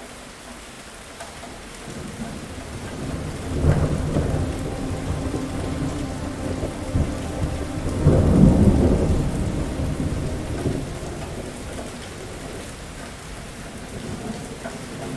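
Steady heavy rain with a long roll of thunder. The rumble builds about two seconds in, swells to a first peak, reaches a louder peak about halfway through, then dies away over several seconds while the rain goes on.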